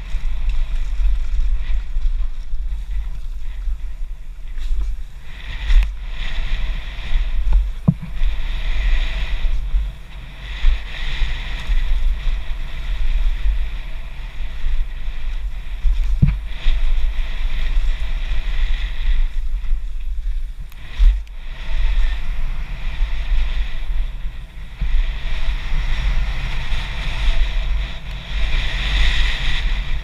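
A mountain bike descending a rough dirt and rock downhill trail at speed: heavy wind buffeting on the microphone, tyres rolling and skittering over the ground, and a few sharp knocks as the bike hits bumps.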